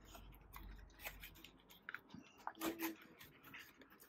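Faint rustling and soft irregular taps of paper being handled, as a bundle of folded pages is slipped into the centre of a handmade journal cover.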